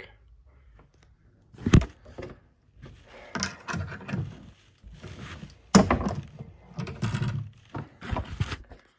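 Hard objects being handled: two sharp knocks, about two and six seconds in, the second the loudest, with irregular clattering and scraping between them.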